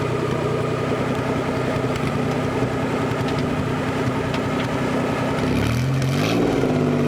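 Turbocharged VG30ET V6 in a Nissan 300ZX (Z31) running steadily; about five and a half seconds in its note rises and then holds at a higher, steady pitch.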